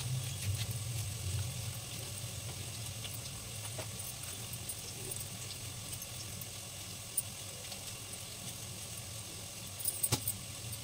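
A knife cutting a tomato on a plastic chopping board, a few sharp taps near the start, about four seconds in and again near the end, over a steady low hum.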